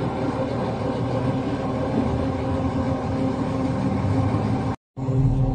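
Mobile crane's diesel engine running steadily while it holds a jaw crusher on its chains. The sound cuts out for a moment near the end, then the drone picks up again.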